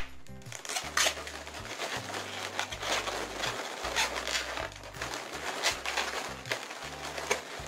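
Latex modelling balloons being twisted into pinch twists and handled: dense rubbing with scattered sharp clicks.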